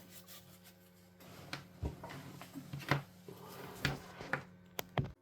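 Light plastic clicks and knocks as the reassembled Sega Mega Drive controller is handled, about six of them, scattered through the second half, over a steady low hum.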